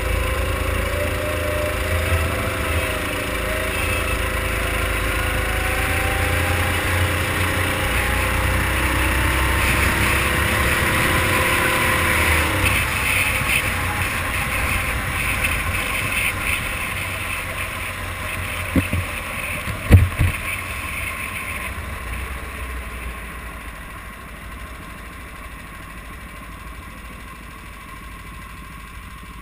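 Kart engine running at speed on the onboard microphone, its pitch rising and falling through the corners, then dropping away about halfway through as the kart slows. Two sharp knocks come about two-thirds of the way in, and the engine then idles quietly as the kart rolls to a stop in the pit lane.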